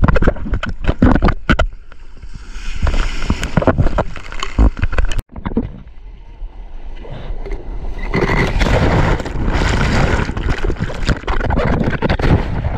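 Sea water splashing and rushing against a waterproof action camera held at the waterline while a bodyboard moves through whitewater, with knocks of water and hands on the camera housing. The sound cuts out sharply a little over five seconds in, and the rushing of foam grows louder and denser from about eight seconds on.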